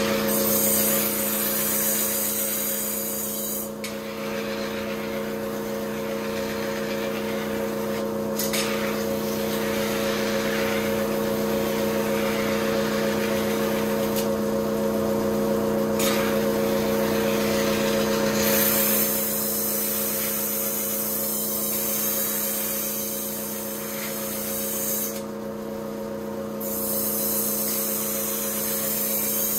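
Kitchen knife blade being ground on a motor-driven wheel whetstone: a steady motor hum under the hiss of steel rubbing on stone. The grinding hiss breaks off briefly several times as the blade is lifted and set back on the wheel.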